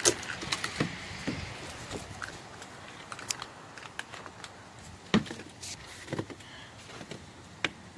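Scattered crunches and sharp clicks on a faint background hiss: footsteps in snow and the rustle of a phone being handled while walking.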